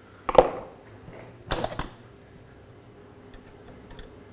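Hand tools clattering on a workbench as a screwdriver is set down and another small tool picked up: two sharp clattering knocks within the first two seconds, then a few light clicks near the end.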